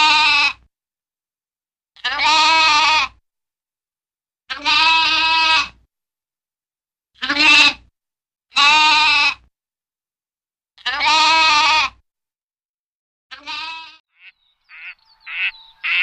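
Lambs bleating: six long, loud bleats about two seconds apart, then a weaker, shorter one. Near the end, a few short mallard duck quacks begin.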